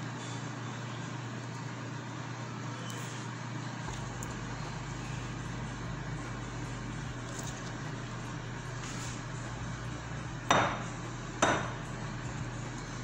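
Two sharp clinks about a second apart near the end, hard utensils knocking against a glass mixing bowl while caramel popcorn is moved between bowls, over a steady low hum.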